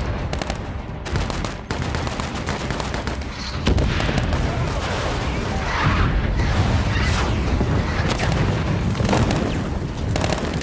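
Film battle sound: rapid rifle and machine-gun fire mixed with explosions, getting louder with a heavy blast about four seconds in.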